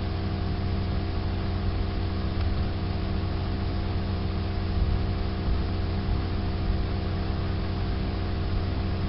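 Steady background hum: several constant low tones over an even hiss, unchanging throughout.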